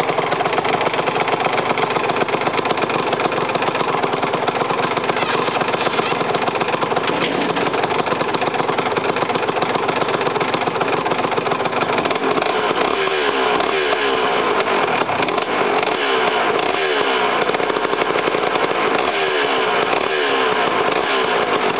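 Aprilia RS125's single-cylinder two-stroke engine idling steadily after start-up. About halfway through, the idle begins to waver slightly up and down.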